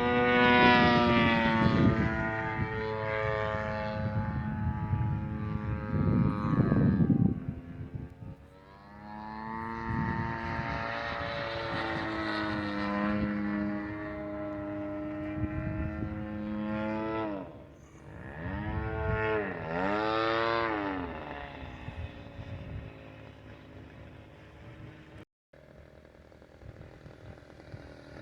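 Radio-controlled model airplane engine buzzing in flight. Its pitch and loudness rise and fall as the plane makes passes and changes throttle. Near the end it fades as it flies off.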